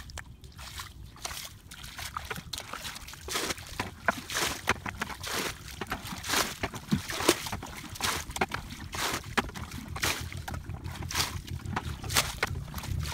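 Irregular splashing and sloshing of shallow water, busier from about three seconds in, over a low wind rumble on the microphone.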